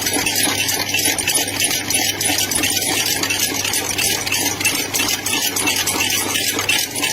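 A machine running steadily, with a fast, even rattle over a low hum.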